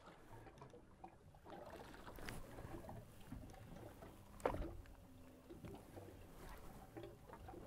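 Faint open-water and boat ambience, with a short soft knock about four and a half seconds in.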